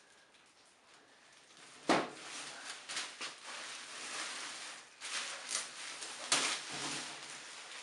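Handling noises from unpacking a tool chest: a sharp knock about two seconds in, then rustling and scraping with several more knocks, the loudest near the end.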